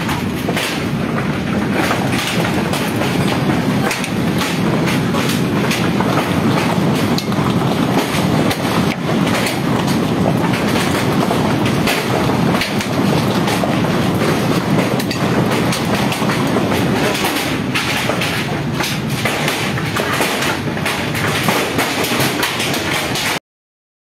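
Dense, steady clatter of volcanic stones and gravel raining down on roofs and the ground during the eruption, over a continuous low rumble. It cuts off suddenly near the end.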